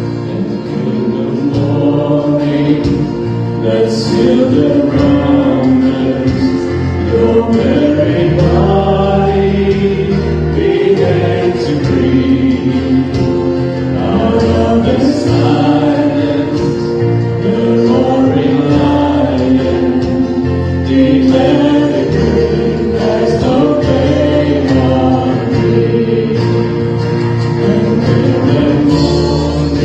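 Live church worship band playing and singing: a male lead singer and backing singers over acoustic guitars, keyboard and drums, steady and continuous.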